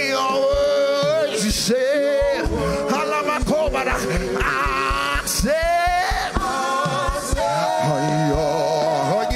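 Gospel worship song: a voice singing long, wavering notes over band accompaniment with a steady beat.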